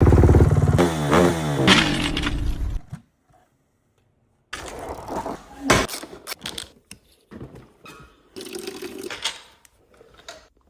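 An engine running with its pitch sliding up and down for about three seconds, then cutting off suddenly. After a short silence, scattered metallic clicks and knocks of tools being handled.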